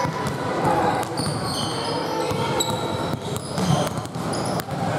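Basketball being dribbled on a hardwood gym floor, sharp repeated bounces, with short high-pitched sneaker squeaks and players' voices calling out.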